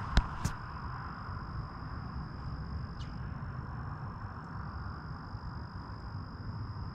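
Outdoor background of wind rumbling on the microphone, with a thin, steady high-pitched tone running through it. A sharp click comes just after the start, followed by a smaller one.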